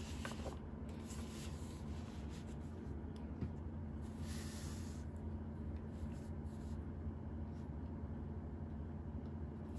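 Yellow legal-pad paper rustling as the pages are lifted and folded back, with a louder hissing rustle about four seconds in. Then a 0.7 mm ballpoint pen scratches faintly on the paper. A steady low hum runs underneath.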